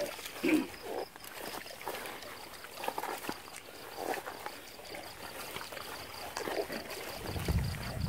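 Wading through shallow water and wet marsh grass: irregular splashes, swishes and small knocks, with a high, evenly pulsing chirp running behind them.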